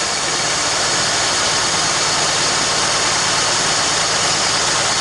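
1999 Acura CL 3.0's V6 engine running steadily just after being started, with its noisy power steering pump working. The pump noise is blamed on worn pump O-rings letting air in, though the owner allows that the pump itself may be going out.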